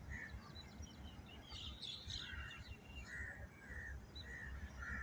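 Birds chirping faintly in many short, separate calls over a low steady background rumble.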